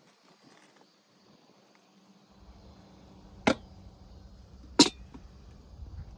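Two sharp knocks about a second and a half apart, over a low rumble.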